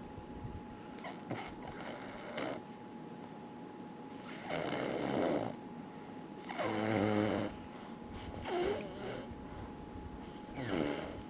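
Snoring: a series of noisy breaths about every two seconds, some carrying a low buzzing pitch, the loudest around the middle.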